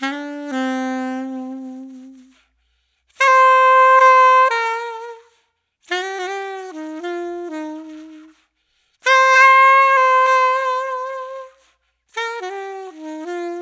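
Soprano saxophone played through a JodyJazz HR* Custom Dark hard-rubber mouthpiece with a 7 tip opening and a 3.5-strength reed, a harder reed used to darken the tone. It plays short melodic phrases of held and moving notes, separated by brief pauses.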